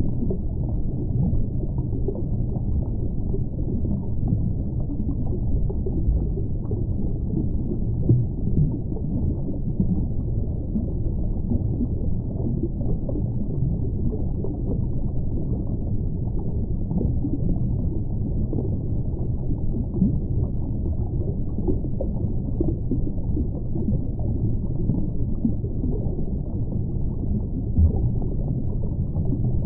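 Muffled underwater ambience: a steady low rumble of water with no distinct events.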